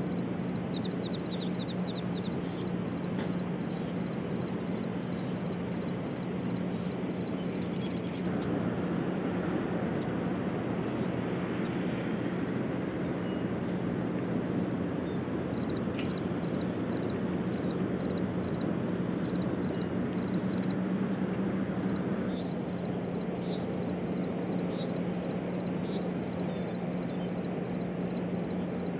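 Outdoor ambience: an even rushing noise with a steady low hum beneath, and rapid, high-pitched chirping repeating throughout.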